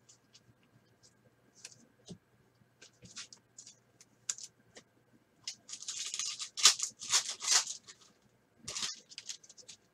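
Foil wrapper of a 2020 Panini Certified football card pack being torn and crinkled open: a dense crinkling rustle from about five and a half seconds in to about eight seconds and a shorter burst near the end, after a few seconds of scattered light scratches and clicks.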